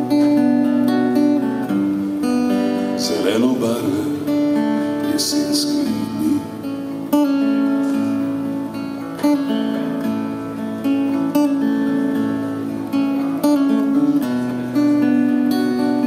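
Steel-string acoustic guitar strummed in an instrumental break between verses, with a new chord struck about every two seconds.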